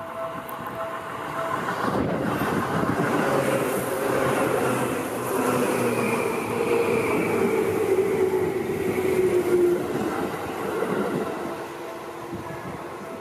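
Yellow Seibu 2000-series electric commuter train passing close by: the rumble of its wheels on the rails builds about two seconds in, stays loud for some eight seconds with a tone falling in pitch, then eases off. The level-crossing warning bell keeps ringing, heard again plainly near the end.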